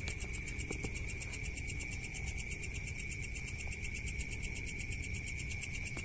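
Crickets chirping in a steady chorus: a high ringing trill with a rapid, even pulse, over a low background rumble.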